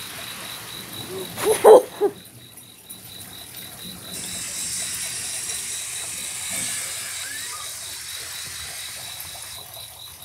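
Crickets chirping in a steady, even pulse at one high pitch, over a faint hiss. A short, loud pitched sound breaks in about one and a half to two seconds in.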